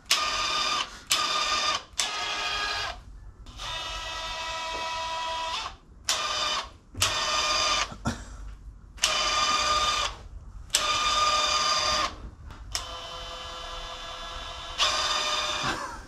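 A small electric motor whining in a series of short runs, about ten of them, each lasting one to two seconds with brief pauses between.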